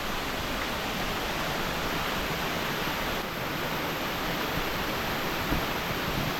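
Waterfall rushing steadily: an even roar of falling water, close by.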